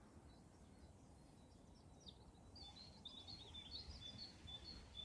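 A small bird singing faintly from about two seconds in, a run of quick high chirps and short trilled notes, over a low rumble of wind.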